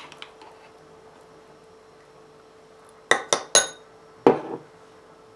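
A spoon clinking against a bowl as mayonnaise is scooped in: three quick sharp clinks about three seconds in, the last one ringing, then a duller knock a moment later. A faint steady hum runs underneath.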